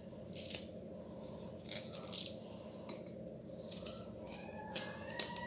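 A knife cutting into a raw peeled potato on a steel skewer as the potato is turned for thin spiral slices. Faint, scattered crisp cuts and light clicks.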